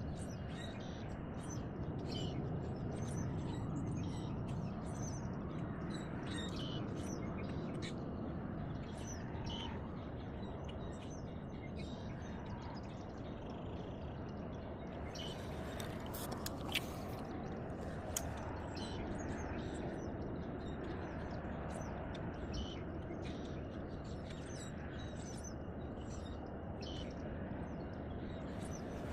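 Small birds chirping again and again over a steady low background noise, with two sharp clicks a little past the middle.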